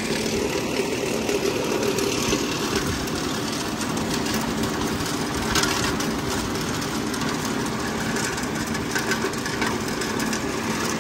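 Green-leaf chopping machine running steadily with an even motor drone while fresh leaves and stems are fed into its hopper and shredded.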